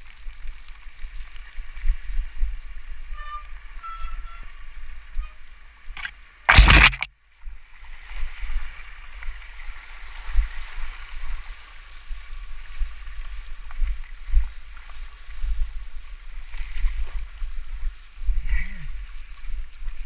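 Mountain bike ridden through deep mud and puddles: tyres squelching and splashing and the bike rattling over the ruts, with low wind buffeting on the helmet-camera microphone. One loud crash-like burst about a third of the way in.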